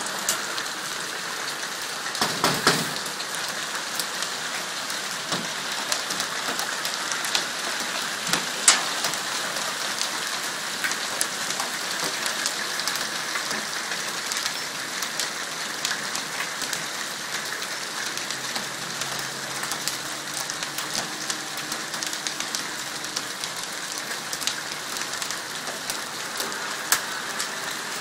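Hail coming down hard: a steady dense patter with many sharp ticks of single hailstones striking, a brief louder flurry of hits a couple of seconds in.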